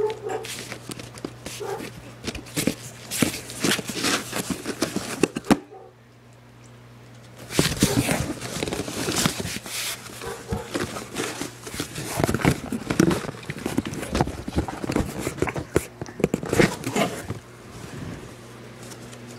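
Rapid scratching, rustling and knocking on a cardboard box with a cat inside. It comes in two long spells, with a pause of about two seconds some six seconds in.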